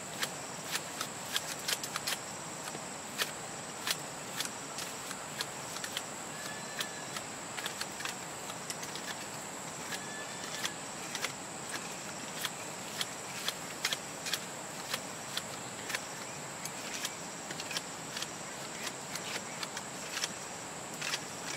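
Steady high-pitched insect drone, with irregular sharp clicks about two to three a second on top of it.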